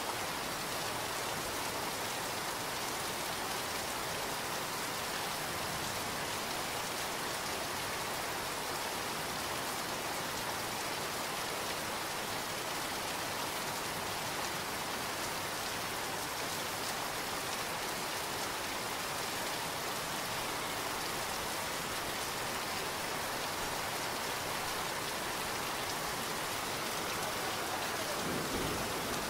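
Heavy downpour: a steady, even hiss of torrential rain falling and splashing. A low rumble of thunder starts to build near the end.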